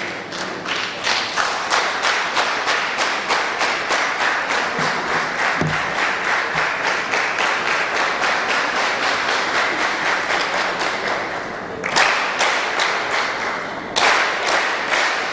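Parliamentary bench applauding, many hands clapping together in a steady rhythm, with two louder bursts of clapping near the end.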